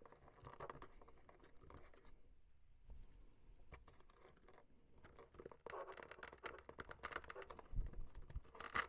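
Faint scratching and small clicks of fingers working a battery latch inside a model aircraft fuselage, getting busier over the second half.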